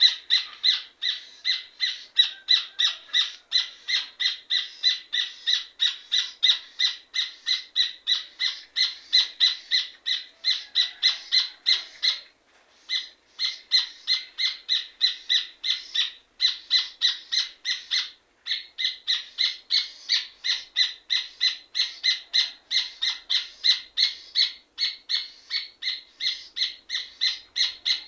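Rufous hornero (red ovenbird) singing: a long run of rapid, evenly repeated ringing notes, about three to four a second, broken by short pauses about 12 and 18 seconds in.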